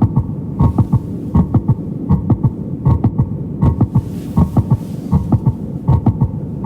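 Recorded heart sounds, as heard through a stethoscope: paired lub-dub thumps repeating evenly at about 80 beats a minute over a steady low hum.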